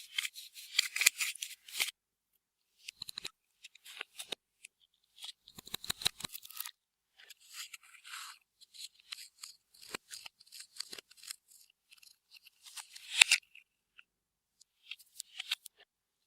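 Clear slime being squeezed and stretched by hand, giving irregular runs of sticky clicking and crackling with short pauses between.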